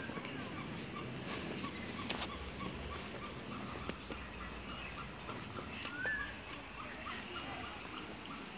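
Many short bird calls and chirps from birds in wire-mesh aviaries, with one brief sliding call about six seconds in.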